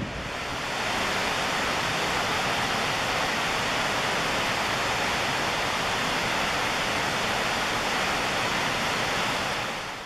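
A tall plunge waterfall pouring into its pool: a steady, dense rush of falling water. It fades briefly near the end.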